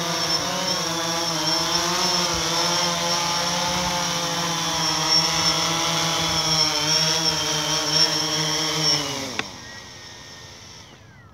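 Quadcopter drone's propellers whining with a slightly wavering pitch as it comes down and touches down on the pavement; about nine seconds in the motors spin down with a falling pitch and stop.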